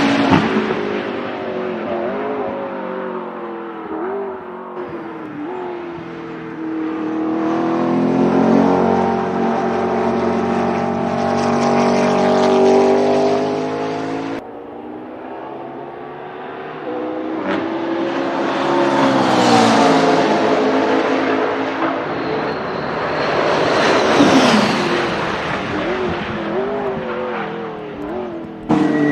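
McLaren P1 GTR's twin-turbo V8 running hard on track, its note climbing and dropping with the revs as it accelerates and shifts. The car passes close several times, swelling and fading, with abrupt jumps between takes.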